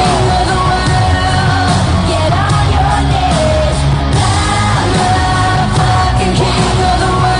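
Loud rock song with a sung, partly yelled vocal and a steady drum beat, played over the arena sound system as the winner's music.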